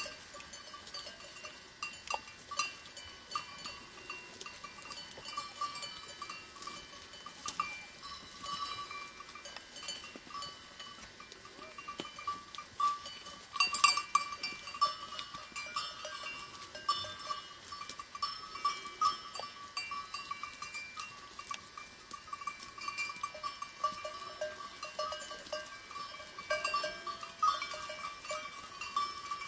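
Bells on a grazing flock of goats and sheep, clinking and jangling continually as the animals move, with a louder burst of clanking about halfway through.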